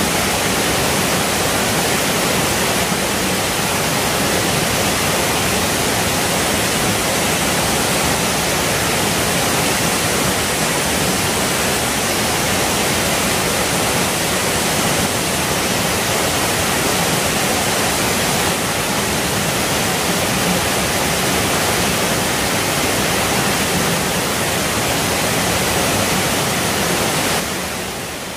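Rocky mountain stream rushing over small rapids: a loud, steady rush of water that drops a little in level near the end.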